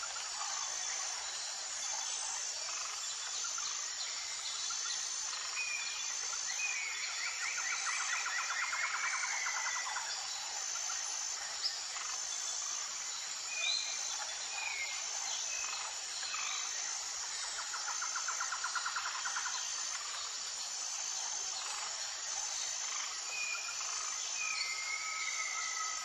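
Insects chirring in a steady high drone with an evenly repeating pulse, and wild birds calling over it. A fast rattling trill comes about a quarter of the way in and again past halfway, with scattered short whistles and a falling whistle near the end.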